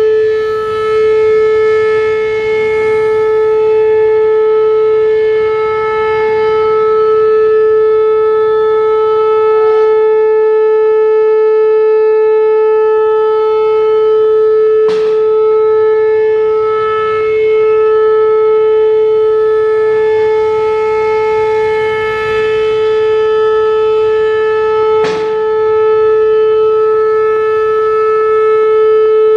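Whelen WPS-4008 electronic warning siren sounding a steady, unwavering alert tone, swelling and fading slowly as its rotating head turns. Sharp pops break through it, the loudest two about halfway through and near the end; these come from the siren's broken drivers.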